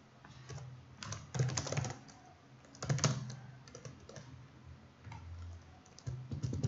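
Computer keyboard typing in short bursts of key clicks, with a faster, denser run of keystrokes near the end.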